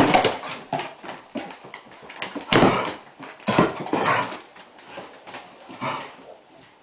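Dogs, one a Podenco Canario, play-fighting on a wooden floor: scuffling, bumping and dog vocal noises in irregular bursts, the loudest near the start and about two and a half seconds in, fading as the dogs run off near the end.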